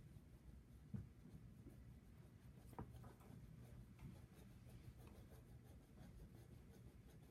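Faint scratching of a Prismacolor Premier colored pencil shading on paper in repeated short strokes, with two light taps, one about a second in and one near three seconds.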